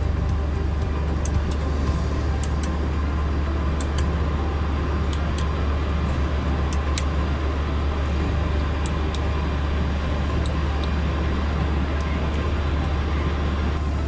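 Steady low hum and noise of an ATR 72-500 cockpit with systems powered, at an even level throughout. Light, sharp clicks come now and then, from the autopilot panel's pushbuttons being pressed.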